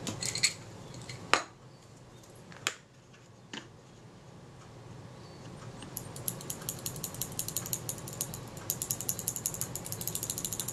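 A few sharp taps, then from about six seconds in a rapid run of fine ticking from the moving parts of a Synchro-Compur leaf shutter's mechanism plate, worked back and forth by hand to spread the graphite-powder lubricant.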